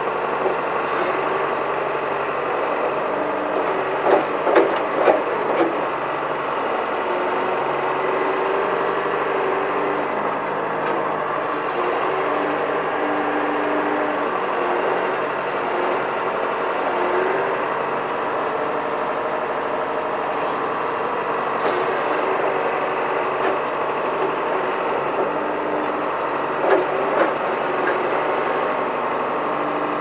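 John Deere 410 backhoe's diesel engine running steadily just over idle while the backhoe digs, with a few short louder sounds about four to five seconds in and again near the end.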